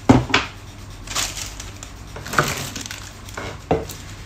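Plastic food processor parts knocked and set down on a counter: two sharp knocks at the start, a rustle of plastic wrapping about a second in, then two more single knocks.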